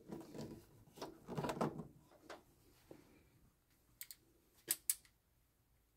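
Faint handling noise as a plastic line splitter and a power plug are fitted into a wall outlet, then a few short sharp clicks about four to five seconds in.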